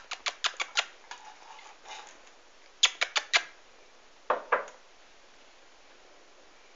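Sharp clicks in three quick clusters: about six in the first second, four more near the middle, then two duller knocks soon after.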